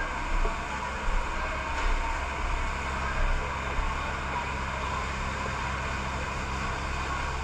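A vehicle engine running steadily: a low rumble with an even hiss over it, and a steady hum that comes in about three seconds in.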